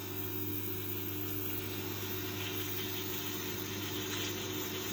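Steady low electrical hum with an even hiss over it, heard through a television's speaker during a gap in a broadcast.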